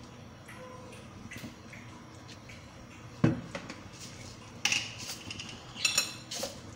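Kitchen clatter of dishes and utensils being handled: a single knock about three seconds in, then a few clinks, one near the end with a short metallic ring.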